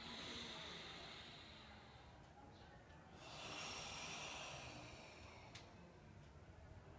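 Forceful Sanchin kata breathing: two long, hissing breaths, the first at the start and the second about three seconds in.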